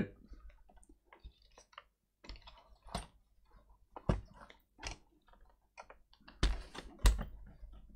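Plastic clicks and knocks from an HP Pavilion laptop being handled: the lid shut and the laptop turned over on the bench, with the loudest knocks about six and a half and seven seconds in.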